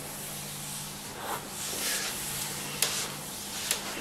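Soft swishing of palms gliding over oiled skin in light massage strokes, with a couple of faint clicks near the end.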